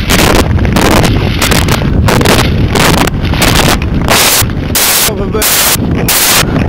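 Heavy wind buffeting on the microphone of a camera carried by a speed skater, a constant low rumble with a hissing rasp that pulses about two to three times a second, louder in the second half.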